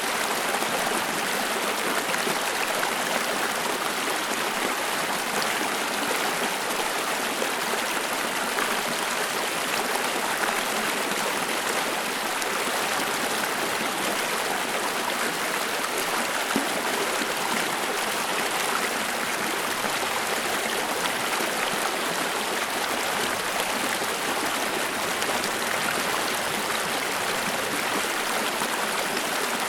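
A flowing stream: water running and babbling over stones, a steady even rush with no let-up.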